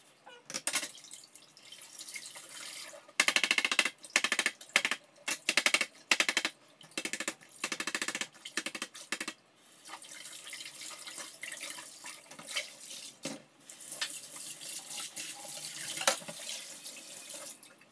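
A knife scraping a tilapia in quick repeated strokes over several seconds, then a kitchen tap running steadily into a steel sink.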